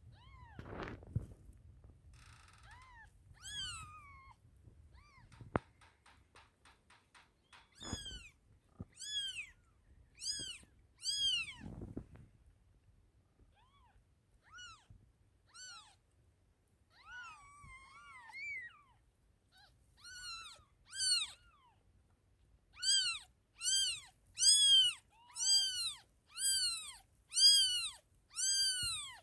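One-day-old kittens mewing: high-pitched, arched little cries, scattered and faint at first, then about one a second and louder over the last several seconds. A few low thumps come in the first half.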